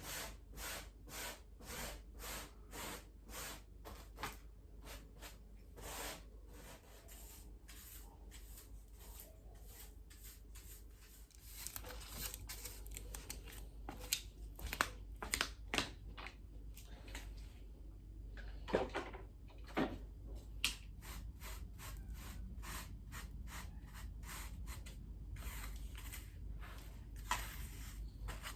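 Many small clicks, knocks and rustles of household items being picked up and put away during tidying, over a steady low hum.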